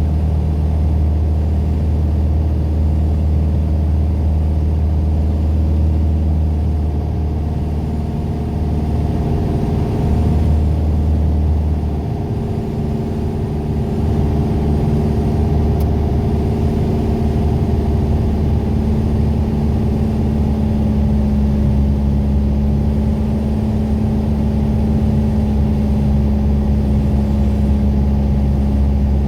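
Light aircraft's piston engine and propeller running steadily, the note of a Piper PA-28 Warrior's four-cylinder engine. The note wavers briefly about ten to twelve seconds in, then holds steady at a slightly higher pitch.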